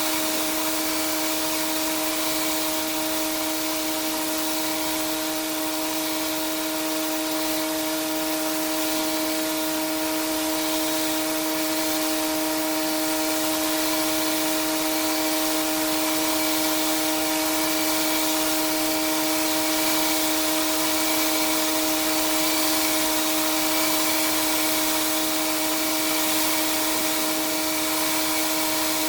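Pressure washer running steadily, a constant whine with the hiss of the high-pressure water spray over it.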